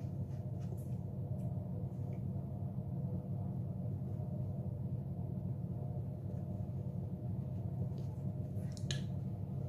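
Steady low background hum, with a few faint short clicks, the sharpest one near the end.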